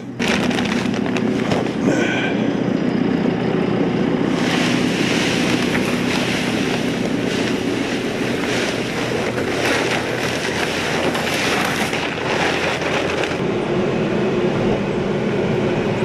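Diesel farm loader engine running steadily. From about four seconds in, a loud rushing clatter sits on top of it and cuts off suddenly about three seconds before the end.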